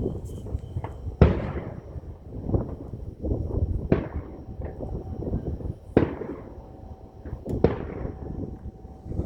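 Aerial fireworks shells bursting: four loud bangs a second or two apart, each trailing off in an echo, with smaller pops and rumbling between them.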